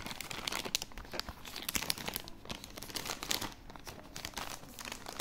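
Clear plastic packaging bag crinkling and crackling irregularly as it is handled to be opened.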